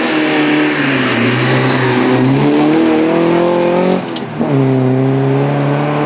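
Saab 99 EMS rally car's four-cylinder engine pulling hard, its pitch climbing for several seconds, then a brief dip about four seconds in as it shifts up and carries on at a lower pitch. A hiss of tyres on gravel runs underneath.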